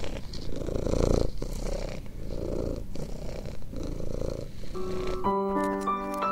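Cat purring in a rough, steady rumble that swells and breaks with each breath. About five seconds in, gentle music with sustained notes takes over.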